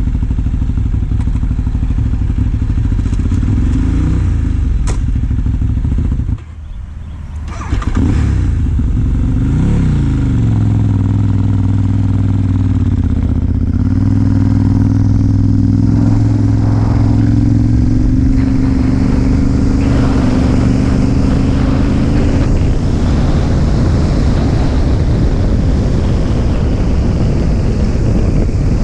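Ducati motorcycle engine running while riding: it drops back almost to idle about six seconds in, then pulls away with revs rising for a couple of seconds and settles into a steady cruise.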